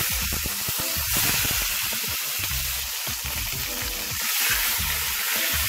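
Marinated steak sizzling steadily as it fries in hot oil in a stainless steel pan.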